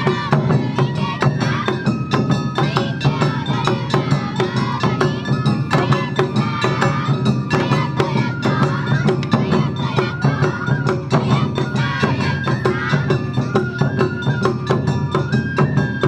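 Awa Odori festival music played live: high bamboo flutes carry a stepped melody over a fast, even beat of drums and a small metal gong.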